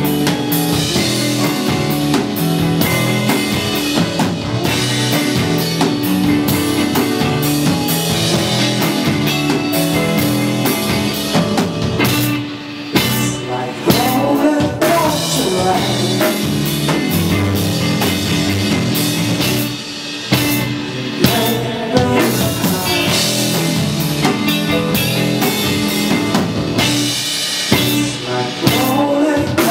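Live rock band playing with a full drum kit, bass and guitar, the singing intermittent. The music drops back briefly about twelve seconds in and again about twenty seconds in.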